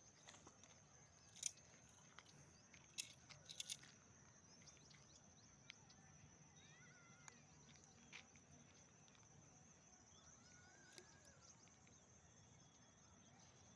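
Quiet outdoor ambience: a steady faint high-pitched tone, a few sharp clicks in the first four seconds, and faint short chirps later on.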